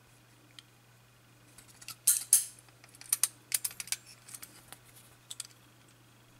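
Irregular metallic clicks and clinks from a steel-and-brass clock movement being handled and turned over in the hands. The loudest clinks come about two seconds in, and the clicking thins out near the end.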